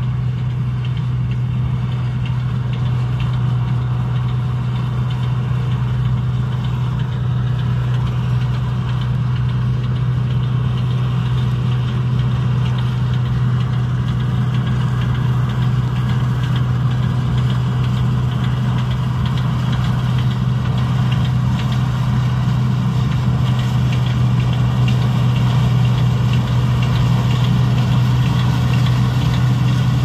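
Combine harvester running as it cuts soybeans: a steady engine drone with a strong low hum, growing slightly louder as the machine comes closer.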